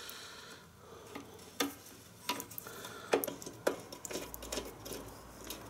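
Small metallic clicks and scrapes of a spanner and fingers working loose the adjuster nut on a Kawasaki ER-5's rear drum brake rod, with a handful of sharp ticks at uneven intervals.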